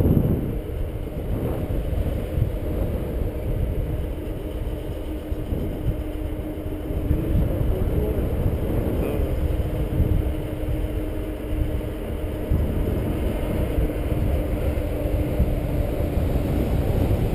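Wind buffeting the camera's microphone in paraglider flight: a continuous low rumble that swells and dips unevenly.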